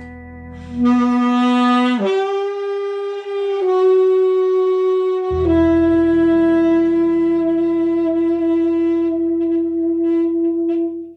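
Tenor saxophone playing the closing phrase of a slow ballad over a backing track, moving through a few sustained notes and then holding one long final note with a slight vibrato near the end before it cuts off.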